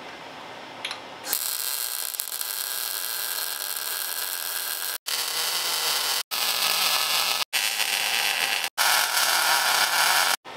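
MIG welder tack-welding steel four-link suspension brackets: a steady crackling hiss that breaks off abruptly several times and resumes.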